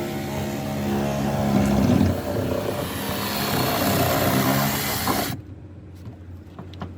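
Power saw's motor running and cutting through a boat's soft deck floor, the noise swelling and dipping as it works through the cut, then stopping suddenly about five seconds in.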